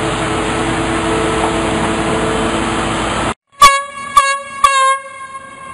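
Steady construction-site noise, then after a sudden cut three short, loud air horn blasts about half a second apart, ringing out after the last: the signal for work to stop.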